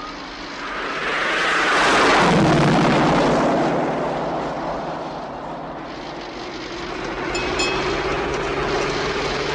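A car rushes past close by, the noise swelling and the engine pitch dropping as it goes, then a car engine runs on steadily with its pitch slowly rising as it picks up speed.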